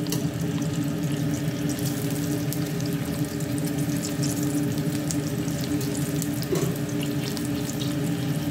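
Sliced garlic sautéing in a little oil in a large stainless steel pot: faint scattered sizzle crackles over a steady rushing hiss and low hum from the kitchen.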